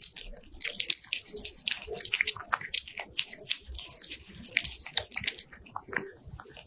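A cat's mouth noises: chewing and wet smacking in a rapid, irregular run of small clicks.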